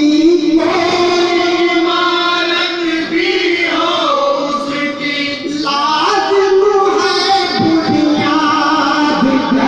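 A man singing an Urdu devotional kalam into a microphone over a loudspeaker, in long drawn-out phrases with a steady low tone held underneath.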